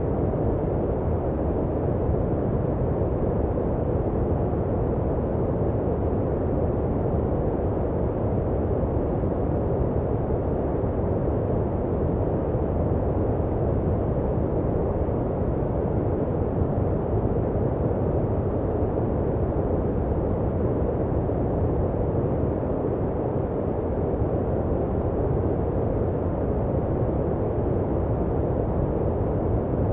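Continuous generated sleep noise: an even, unchanging rush, deep and muffled, with most of its weight in the lows and almost no treble.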